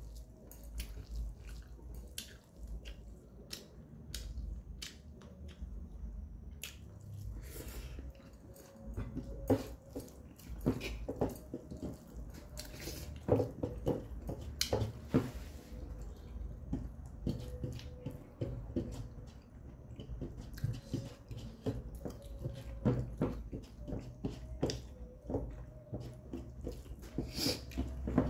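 Close-up mouth sounds of eating: chewing and lip-smacking with many short wet clicks, mixed with soft squishes of fingers working rice and curry on a metal plate.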